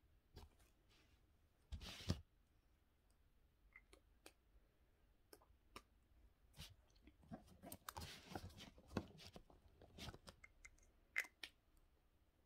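Faint scattered clicks and short scratchy strokes of drawing on paper and handling art supplies. The loudest is a brief scrape about two seconds in, and the strokes come more thickly later on.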